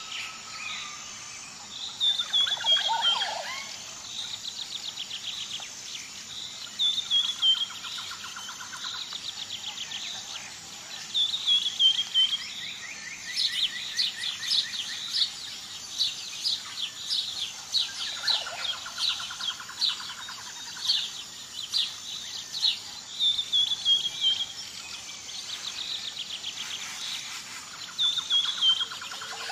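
Songbirds singing and calling: short descending whistled phrases, rapid trills and chirp series repeating every few seconds, with several voices overlapping. A faint steady high-pitched hum runs underneath.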